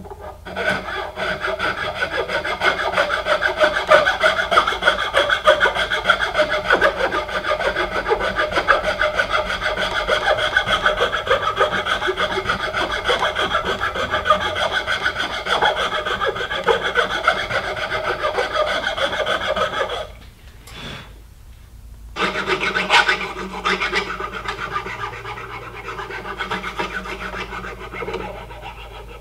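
Flat hand file rasping back and forth over the wooden rifle stock, taking the wood down flush with the brass trigger guard. Steady filing for about twenty seconds, a pause of about two seconds, then more filing that grows lighter near the end.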